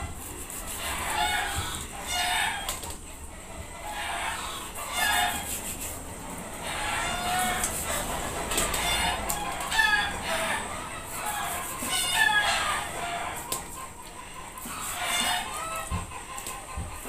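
Chickens clucking and calling, short calls repeating about every second, with a few low knocks near the end.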